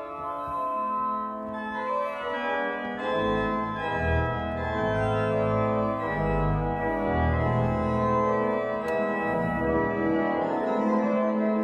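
Pipe organ playing sustained full chords. Deep pedal notes come in about three seconds in and move beneath the harmony.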